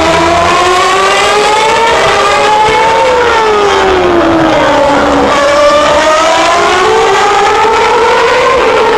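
Formula One cars' 2.4-litre V8 engines at high revs, loud, with more than one engine note overlapping. The pitch rises for the first few seconds, one note falls for about two seconds in the middle, and then notes rise again.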